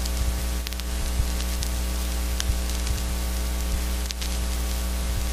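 Industrial noise music: a steady electrical hum with a stack of overtones under a hiss of static, dotted with scattered crackles and clicks.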